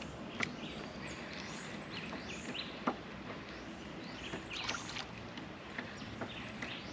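Quiet ambience around a fishing kayak on open water: a faint steady water and hull noise with birds chirping, short falling calls scattered throughout. Two light knocks come about half a second and three seconds in.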